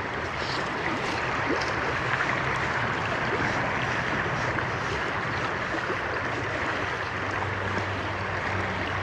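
River water rushing steadily past: the even noise of a flowing trout river's current.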